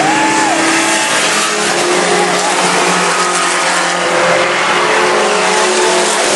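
A pack of compact pickup trucks racing on a dirt oval, their engines running hard together in a loud, steady, overlapping drone. There is a short rising-and-falling whine near the start.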